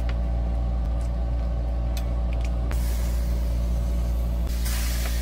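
Steady low machine hum with several steady tones, and a few light clicks about two to three seconds in.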